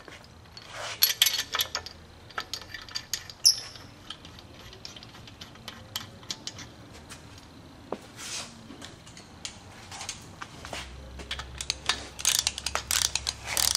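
Metal clicks and clinks of a Chevy 350 main bearing cap and its bolts being set on the block and bolted down, with a loud clink about three and a half seconds in and a busier run of clicks near the end.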